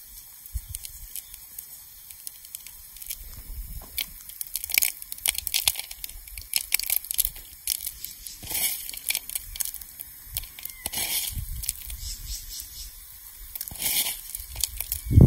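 Dried red chili peppers, their seeds and sea salt crunched and crumbled between fingers in a wooden bowl: irregular dry crackling and crinkling that grows busier after the first few seconds.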